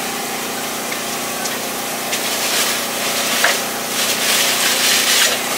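Steady hum of running food-truck equipment, with close rustling and handling noise that grows louder about halfway through.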